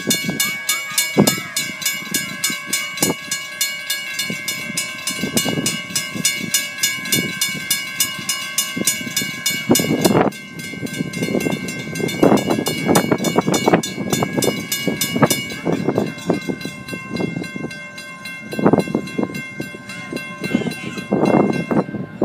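Grade-crossing warning bell ringing rapidly and steadily while the crossing gates are down, warning of an approaching train. Irregular low rumbles come and go beneath it.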